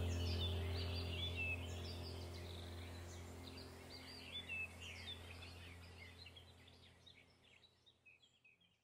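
Birds chirping over a low steady hum in a background soundtrack, fading out evenly until it is gone near the end.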